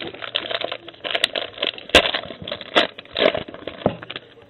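A 2012 Panini Contenders football card pack being handled and opened by hand: the wrapper crinkling and crackling in an uneven run of sharp crackles and rustles.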